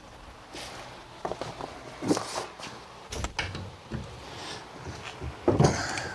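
Metal parts and tools being handled while dismantling an ATV's wheel and chain drive: scattered clanks, knocks and short scrapes, the loudest cluster near the end.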